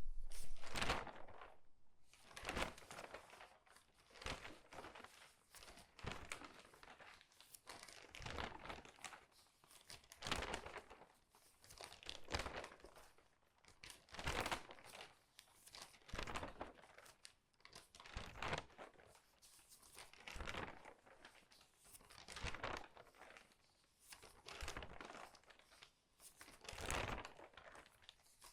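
Crinkly newspaper pages turned quickly, front to back: a crackly rustle as each sheet flips over, about one every two seconds, with softer paper rustling in between.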